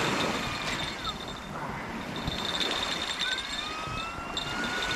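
Distant siren wailing, its pitch slowly falling, then rising and holding. A steady high-pitched tone comes and goes behind it.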